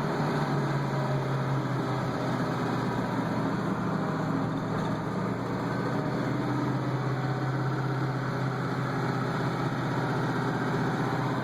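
331 engine running steadily while the vehicle is driven, with the lifter noise that marks a noisy valve lifter.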